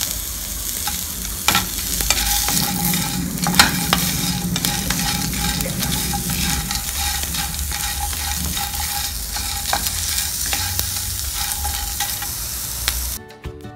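Dry prawns, chopped onion, garlic and dried red chillies sizzling in coconut oil in a frying pan, stirred continuously with a wooden spatula that knocks and scrapes against the pan. Near the end the frying cuts off abruptly to acoustic guitar music.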